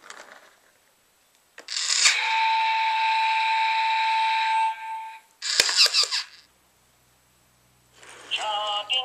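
Electronic train-horn sound effect from a Chuggington Interactive toy engine's speaker: one loud steady note held about two and a half seconds, followed by a short burst of hiss and, near the end, another brief electronic sound.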